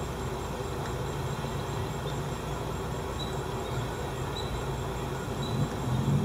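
Steady low outdoor rumble, like distant traffic, swelling a little near the end. Faint short high chirps come about once a second in the second half.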